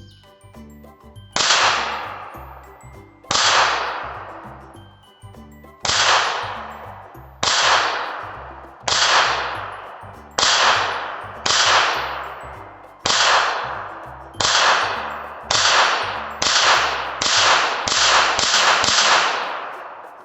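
A Kel-Tec P-17 .22LR semi-automatic pistol with a flash hider, firing about fifteen single shots. They come one to two seconds apart at first, then in quick succession about half a second apart near the end, each with a short ringing decay.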